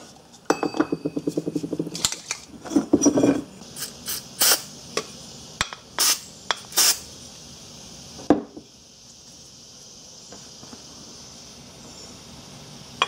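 Several short hissing spurts from an aerosol can of Fluid Film lubricant sprayed into a starter motor housing, preceded by clatter of the can and parts being handled on a workbench and followed by a single knock.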